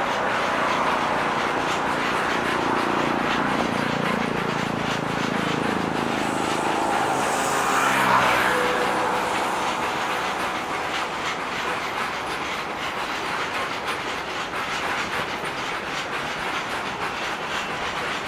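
A train running along the rails, its wheels clicking over the rail joints, loudest about eight seconds in as it passes and then easing off a little.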